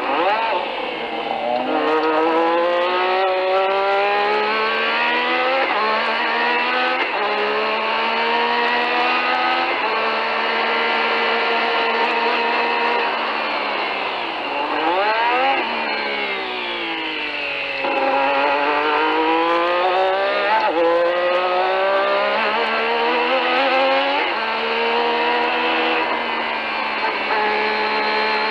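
Renault RE40 Formula One car's 1.5-litre turbocharged V6 at full throttle, heard from the onboard camera. The engine note climbs in pitch through the gears, dropping at an upshift every second or two. About halfway through it falls through quick downshifts for a corner, then climbs through the gears again.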